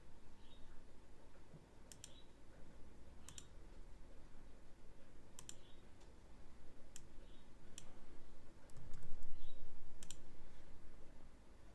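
Computer mouse button clicking, single and double clicks every second or two over faint room noise, with a short low rumble about nine seconds in.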